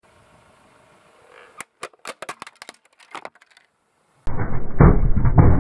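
A thin plastic mask cracking and snapping under a car tyre: a quick run of about ten sharp cracks. About four seconds in, a much louder stretch of dense crunching with heavy thumps starts abruptly.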